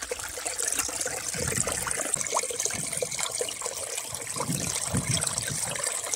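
Shallow rocky stream running and trickling, with a soft water flask held under the surface gurgling and bubbling as it fills.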